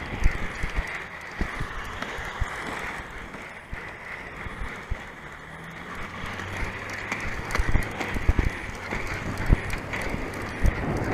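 Inline skate wheels rolling over rough asphalt: a steady whir with frequent irregular knocks and rattles from cracks and bumps in the road.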